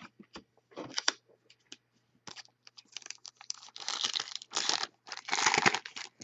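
Trading cards handled by hand on a table: sliding and shuffling with small clicks, building into two louder spells of crinkling past the middle.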